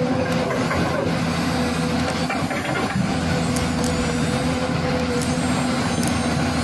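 Radio-controlled toy excavator working its boom and bucket in sand: a steady engine-like drone that dips briefly about a second in, with a few light clicks near the end.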